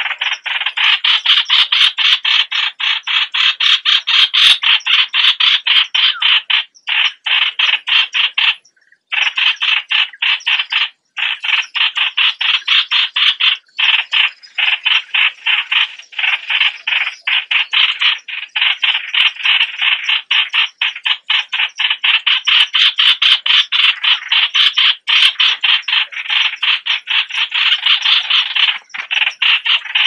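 Yellow-vented bulbul calls, a fast, continuous chatter of short notes, several a second, broken by a few brief pauses: a recorded lure call for attracting bulbuls.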